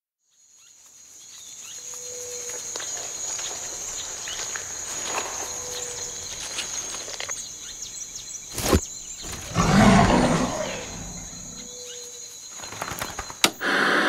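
Forest ambience fading in from silence: a steady high insect-like drone with a short whistled bird call every few seconds. Just past the middle comes one sharp crack, and about a second later a loud, low rumbling swell.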